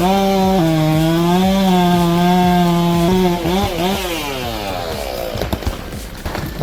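Chainsaw running at full throttle and cutting steadily for about three seconds, then a couple of quick revs and the engine note falling away as the throttle is released.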